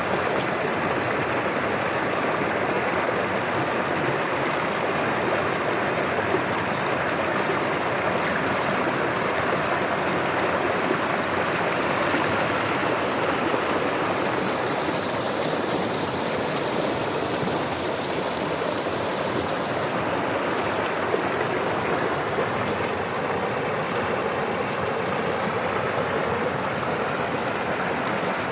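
Steady rushing water noise, even and unbroken, with no distinct events.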